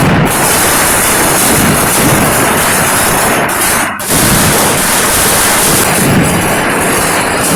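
Dense barrage of festival fireworks, bangs and crackle merging into one loud, continuous roar, broken off for a moment about four seconds in.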